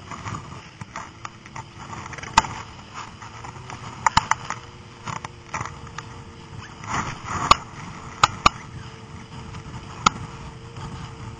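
Snowmobile towing a snow banana boat: a steady engine drone under rushing noise, broken by about eight sharp knocks.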